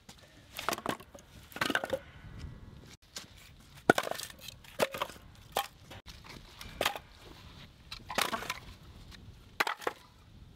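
Split firewood logs being set down and stacked on one another on a concrete pad: a series of wooden knocks and clatters, about eight of them at uneven gaps of one to two seconds.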